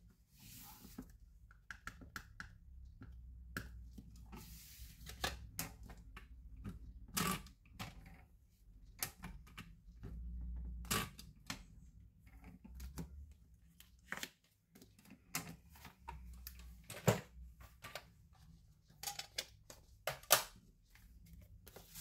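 Irregular hard plastic clicks and taps from a hinged stamping platform and an ink pad being handled as a sentiment stamp is inked and stamped, with a little soft rubbing and one duller thud about halfway through.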